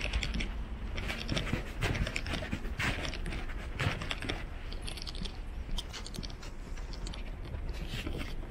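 Footsteps on a city pavement, a sharp step about once a second, over a steady low street rumble.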